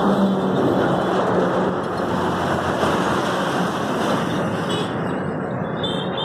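Steady road traffic noise, with a low engine hum underneath.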